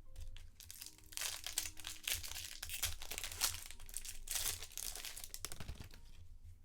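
Foil wrapper of a Bowman trading-card pack crinkling as it is torn open and pulled off, for several seconds from about a second in.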